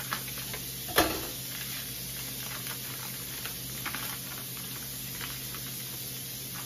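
Plastic meat packaging crinkling and crackling as a steak is pulled out of it, with one sharp crackle about a second in, over the steady rush of a cold kitchen tap running.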